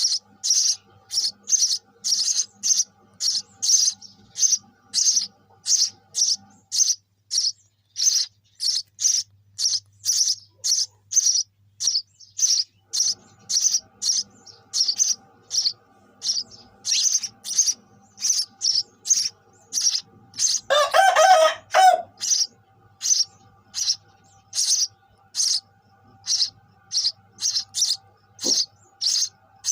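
Sparrow chirping over and over, short high chirps about two a second. About two-thirds of the way through, a louder, lower-pitched call lasts about a second.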